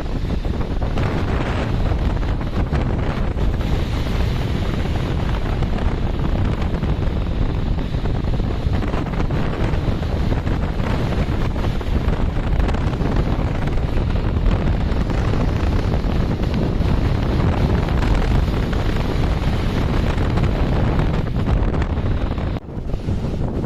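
Strong wind buffeting the microphone: a loud, steady low rumble of wind noise, dropping out briefly near the end.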